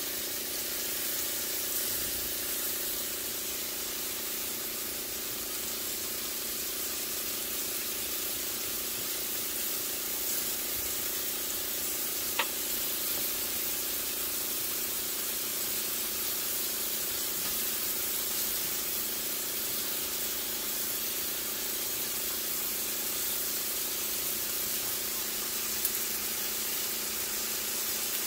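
Sliced white button mushrooms sizzling steadily in a nonstick frying pan over a steady low hum, with two sharp clicks, one about halfway through and one near the end.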